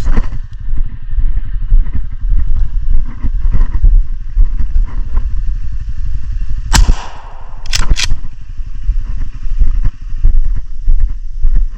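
A small off-road vehicle's engine, most likely an ATV, running steadily as it travels the trail. It is broken by one sharp crack about seven seconds in and two quick clicks a second later.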